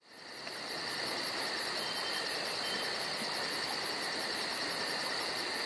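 Crickets chirping: a very high trill pulsing about five times a second over a steady hiss, fading in at the start.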